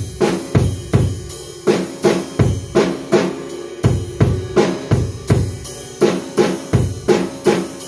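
Acoustic drum kit played in a steady, even beat: bass drum, snare and cymbals struck about three times a second, with the drums ringing briefly after each hit.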